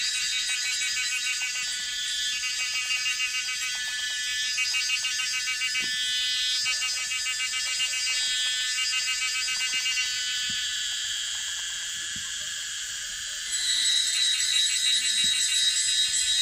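Cicadas calling in a dense, rapidly pulsing, high-pitched chorus; near the end a louder, shriller one joins in.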